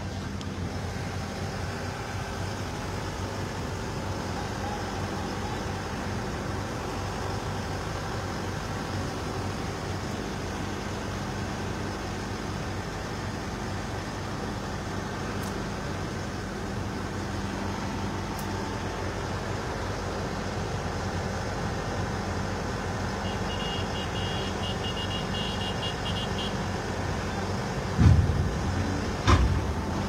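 Heavy truck diesel engine running steadily under a trailer loaded with a big steel barge. About two-thirds of the way through comes a short run of rapid high beeps, and near the end two loud thumps.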